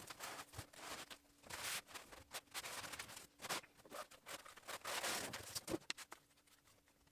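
Sheets of cut XPS foam being slid and handled on an insulation board: faint irregular rustling swishes and light clicks, with a faint steady hum underneath.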